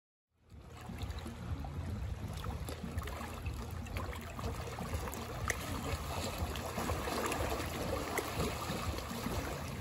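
Small sea waves lapping and splashing against shoreline rocks: a steady wash of water with many small trickling clicks, fading in just after the start.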